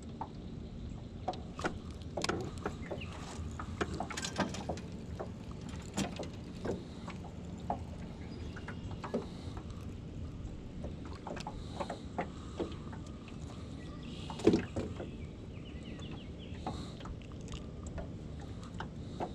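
Scattered clicks and light knocks of a spinning rod and reel being handled and cranked in a small metal boat as a bream is reeled in and landed, with one louder knock about three-quarters of the way through.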